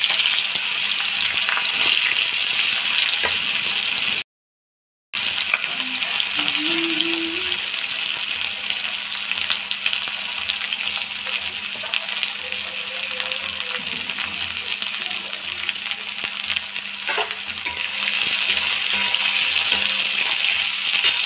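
Sliced onions frying in hot oil in a metal kadai, a steady dense sizzle. The sizzle drops out completely for under a second about four seconds in.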